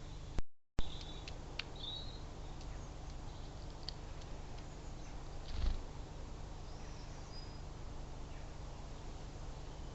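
A few short, high bird chirps and small clicks in the first few seconds, and a soft thump a little past the middle, over a steady low rumble. The sound cuts out for a moment about half a second in.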